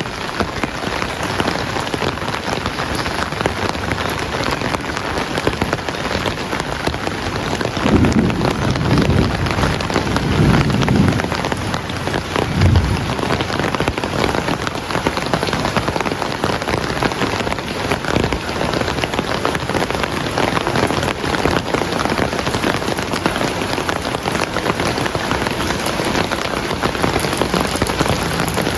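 Heavy rain falling steadily on surfaces, a dense even patter. A low rumble of thunder comes in about eight seconds in and fades after about five seconds.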